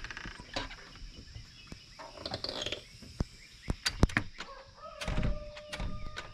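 Clicks and knocks of a glass storm door's handle and latch being worked, the sharpest about four seconds in, followed by a steady drawn-out squeak near the end.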